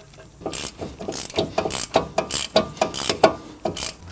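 Ratchet wrench clicking in quick, uneven runs of strokes, starting about half a second in, as a bolt at the front wheel hub is tightened.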